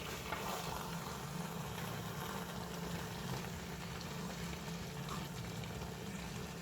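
Aubergine sauce sizzling and bubbling steadily in the pan. A low, steady hum sits underneath.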